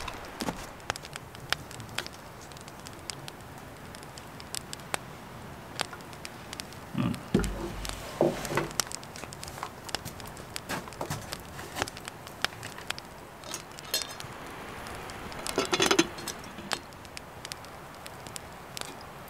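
Wood campfire crackling, with many small sharp pops and snaps scattered throughout. A few louder rustling knocks come about a third of the way in and again near the end.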